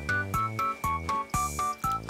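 Background music: a keyboard tune of short, evenly spaced notes, about four a second, over a bass line.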